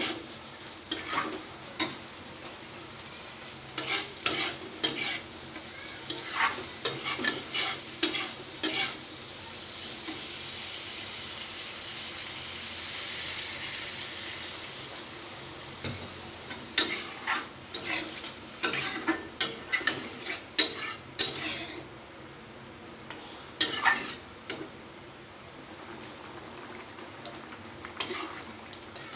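Metal spatula scraping and clinking against a steel kadai as prawns and potatoes fry and sizzle. About midway, water is poured into the hot pan, giving a swelling hiss that fades by about 15 s; then the scraping and clinking of stirring return, and the pan simmers more quietly near the end.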